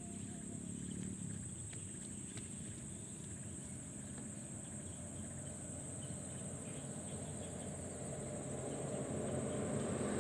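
Insects trilling steadily at a high pitch in marsh grass, with a few faint ticks. Near the end, the low rumble of an engine grows louder as it approaches.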